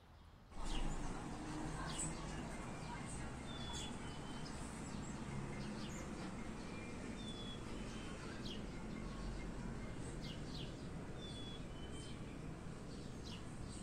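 Small birds chirping in short, repeated high calls over a steady background hiss, coming in suddenly about half a second in.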